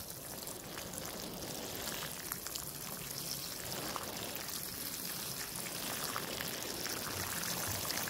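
Water spraying steadily onto cucumber vines, leaves and wooden trellis stakes: a continuous hiss with many small drops pattering, as the plants are watered.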